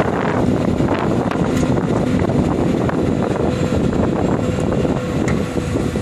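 Caterpillar 329D L excavator's diesel engine running steadily, with wind on the microphone.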